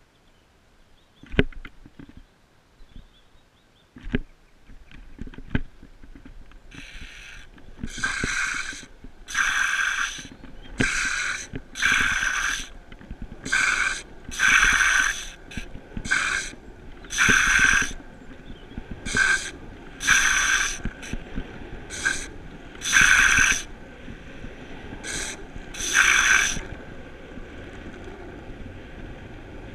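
Longboard's urethane wheels rolling down asphalt with a low rumble, broken from about seven seconds in by more than a dozen short sliding squeals, each under a second, as the rider slides the wheels to scrub speed. Two sharp knocks come in the first few seconds.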